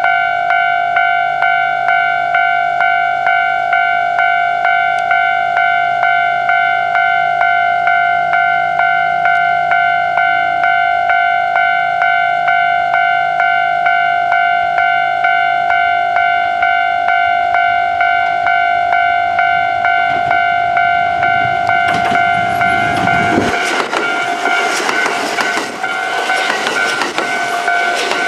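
Japanese railway level-crossing warning bell ringing in a steady, quick repeating ding rhythm. About 22 seconds in, a Kintetsu express train of 2610-series and 2800-series cars passes over the crossing, and its loud wheel and rail noise swamps the bell to the end.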